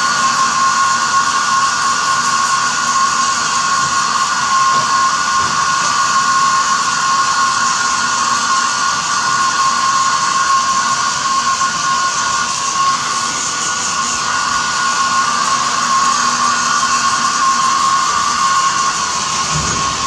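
Small handheld hair dryer running steadily: a constant rush of air with a steady whine.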